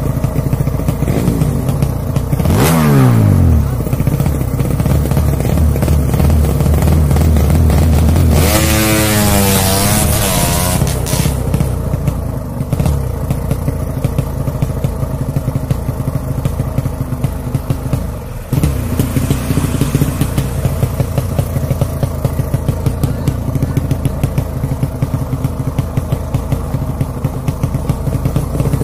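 Tuned 155cc drag-race motorcycle engine running at standstill, revved hard twice, about two and a half seconds in and again around eight seconds in, each rev sweeping up and falling back. Then it idles with a steady pulsing beat.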